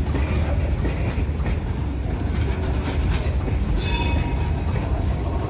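Goods train of open steel box wagons rolling past close by: a steady low rumble of wheels on the rails with clacking over the joints, and a brief high-pitched squeal about four seconds in.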